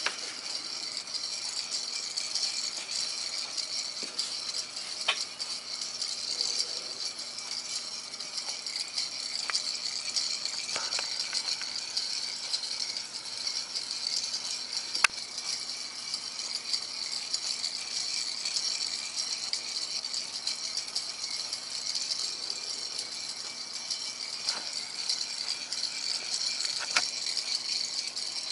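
Motor-driven Earth–Moon orrery running: its gear train makes a steady, fast rattle, with a few sharper clicks scattered through, the loudest about halfway.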